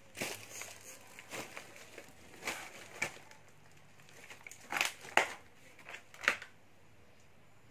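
Footsteps crunching on scattered plastic, cardboard and scrap debris: irregular crunches and crackles, about eight of them, stopping about six and a half seconds in.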